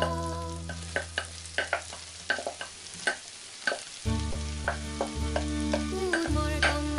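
Chopped mushrooms poured from a glass bowl into a pan of hot melted butter, with sharp crackles and pops of sizzling butter. Background music fades away at first and comes back about four seconds in.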